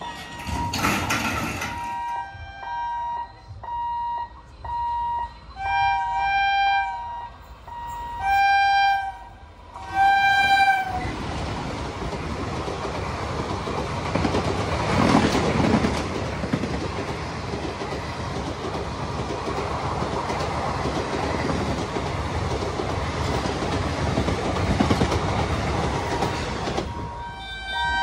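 A level-crossing warning buzzer beeps repeatedly, then the WAP-4 electric locomotive's horn sounds three loud blasts about two seconds apart. The express then passes at speed: a steady rush and rattle of wheels and coaches for about fifteen seconds, which fades near the end as horn tones sound again.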